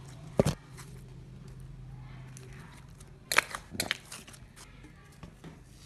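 Slime being squished and stretched by hand, giving a sharp pop about half a second in and a cluster of wet clicks and pops a little past halfway, with fainter clicks after.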